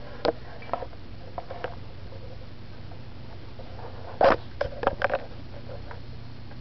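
A yoga mat scuffing and rustling as a cat moves underneath it. There are a few short, soft scrapes, then a louder burst of scuffs about four to five seconds in.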